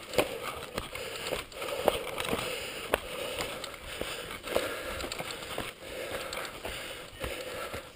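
Mountain bike on a dry dirt-and-gravel trail: knobby tyres and feet crunching over the loose gravel, with irregular sharp clicks and knocks about twice a second.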